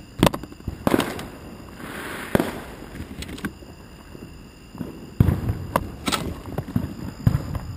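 Fireworks going off: a string of sharp bangs and pops, with a brief hiss about two seconds in and the loudest bang about five seconds in.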